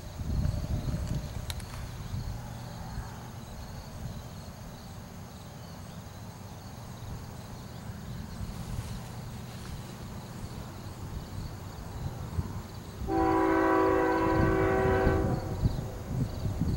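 Approaching GE ES44DC diesel locomotive with a low, steady rumble, then its air horn sounding one long blast of about two seconds near the end, a warning for the level crossing ahead.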